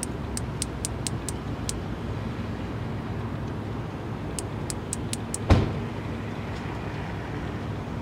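Male Platypedia putnami cicada clicking its wings, its way of calling for a mate: a run of about seven sharp, high clicks in the first two seconds and five more around the middle, over a steady low rumble. Just after the second run comes a single loud thump.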